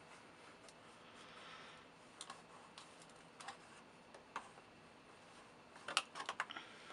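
Knife tip worked into the thin aluminium wall of a soda can to punch small air holes, making faint, scattered clicks and ticks. A quicker, louder run of clicks comes about six seconds in.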